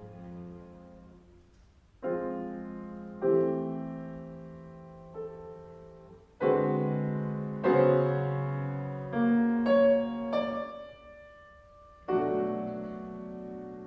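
Grand piano playing slow classical chords, struck every second or two and each left to ring and fade.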